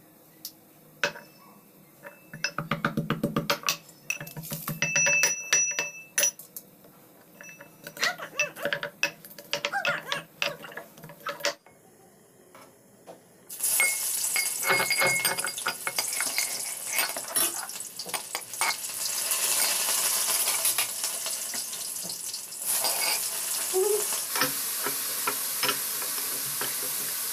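Steel kitchen utensils clinking and knocking, with short ringing metallic tones. After a brief pause comes a steady sizzle of food frying in a pan, with scattered metallic knocks through it.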